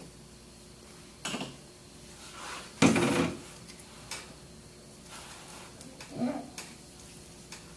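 Metal pump parts clinking and knocking against each other as they are handled and worked off the pump head. One loud metallic clatter comes about three seconds in, with a few lighter knocks and clicks before and after.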